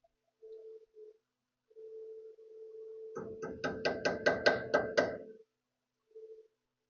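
A quick run of about nine hammer blows on ringing metal, roughly four to five a second, lasting about two seconds. A steady hum comes and goes around them.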